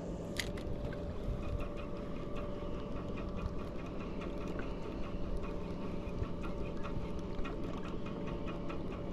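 Large saltwater spinning reel (SW 6000 size) being cranked steadily on a retrieve, its gears giving a fast, even run of fine clicks. There is one sharper click about half a second in.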